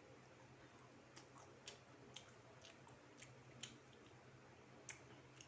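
Faint close-up chewing of crispy flour-battered fried chicken: a string of soft crunches and mouth clicks, about one every half second, over a low steady hum.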